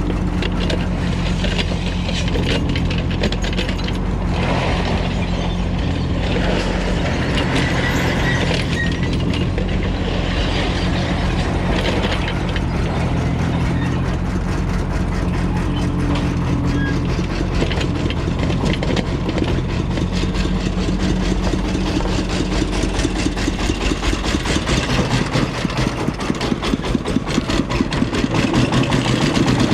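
Diesel engine of a working excavator running steadily. In the last few seconds the sound takes on an even, pulsing beat.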